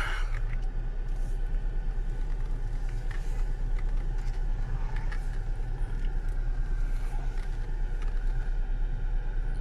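Steady low rumble of a car heard from inside the cabin as it runs and creeps forward slowly.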